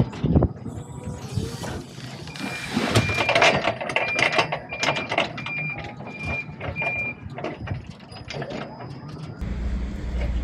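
Forklift reversing alarm beeping in a steady on-off pattern, about twice a second, over sharp knocks and clatter. A low steady rumble comes in near the end.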